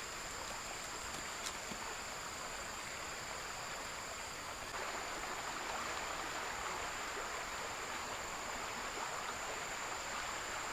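River ambience: a soft, even rush of flowing water, a little louder from about five seconds in, with a thin steady high-pitched tone above it.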